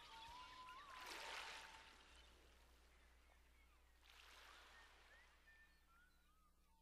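Faint outdoor ambience: thin, short bird chirps over two soft swells of rushing noise, about a second in and again about four seconds in, fading toward the end.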